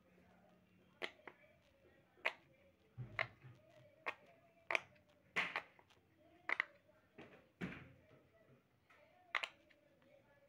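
Silicone pop-it fidget toy, its bubbles pressed in by a finger one at a time: short, sharp pops at uneven spacing, about fifteen in all, some coming in quick pairs.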